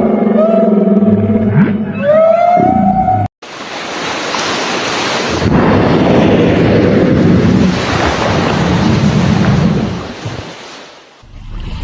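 Humpback whale song: long moaning calls that glide down and up, cut off abruptly about three seconds in. A loud rushing of sea water and wind noise follows, fading away near the end.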